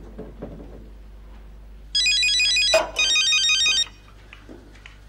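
Telephone ringing with an electronic trilling ringtone: two short bursts of rapidly alternating beeping tones, starting about two seconds in, with a third beginning at the very end.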